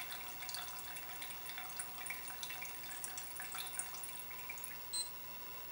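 Petrol flowing through a Dellorto carburettor jet and dripping and trickling faintly into a plastic measuring cylinder, as small scattered ticks and splashes. A short high beep near the end.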